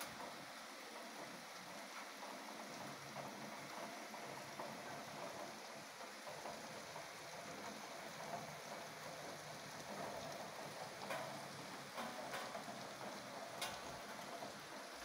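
Rain falling steadily, with a few sharp clicks in the second half.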